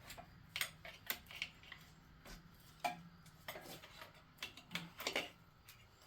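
Light, irregular metal clicks and taps from tools and a main bearing cap being worked loose and handled on a bare 5.3 V8 engine block.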